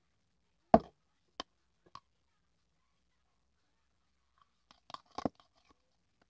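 Plastic spoon knocking and scraping in a plastic cup of agar jelly dessert: one sharp knock about a second in, two lighter ones after it, then a quick cluster of clicks near the end.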